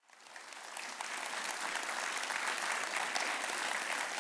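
Audience applauding, fading in over the first second and then holding steady.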